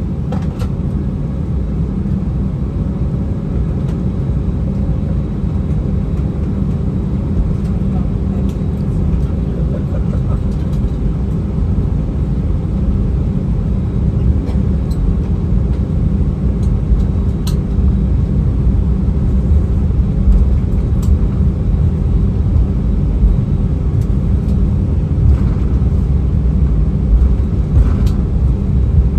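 Airbus A319 heard from inside the cabin: a steady low rumble of its IAE V2500 jet engines and the airframe that slowly grows louder, as the airliner begins its takeoff. A few faint cabin rattles sound through it.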